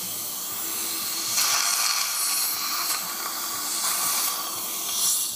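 Dental suction running with a steady hiss of air, growing louder for about a second and a half starting a little over a second in, with another brief swell near the end.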